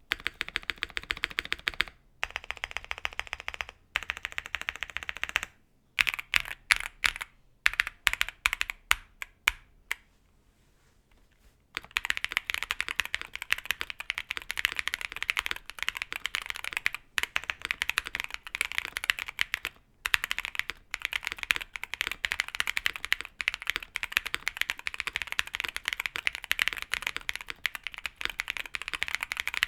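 Typing on a mechanical keyboard fitted with stock, unlubed JWK Quartz linear switches with UHMWPE-blend stems: fast runs of keystrokes with a few short pauses, the longest about ten seconds in, then steady fast typing.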